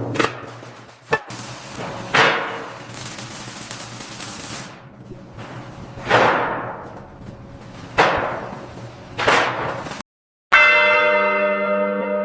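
A series of sudden hits, each with a fading swish. About ten seconds in, a large church bell is struck once and rings on, with many steady overtones slowly dying away.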